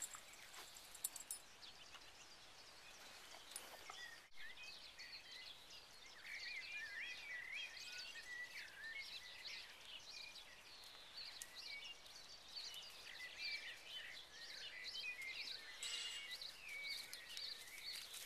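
Small songbirds chirping and twittering in quick, busy phrases over faint outdoor background noise, starting about six seconds in; before that, a few soft clicks.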